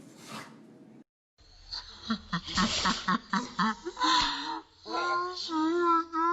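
An animal calling: a quick run of short calls, then a few longer calls that rise and fall in pitch.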